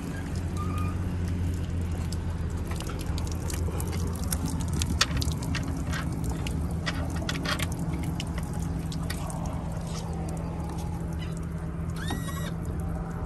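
An engine idling with a steady low hum, with water splashing and dripping onto pavement from the boat's drain hole and outboard. A bird calls once near the end.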